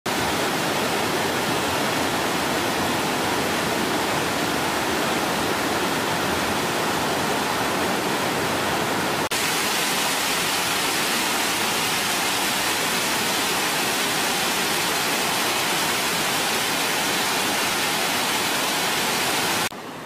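Mountain stream cascading over mossy rocks: a loud, steady rush of falling water. It breaks off for an instant about nine seconds in, then goes on at the same strength, and falls much quieter just before the end.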